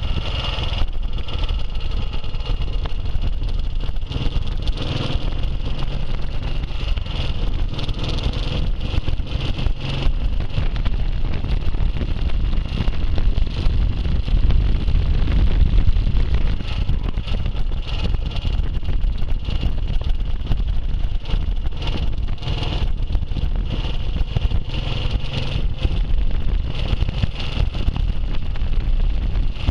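Classic motorcycle engine running steadily at road speed, mixed with road and wind noise.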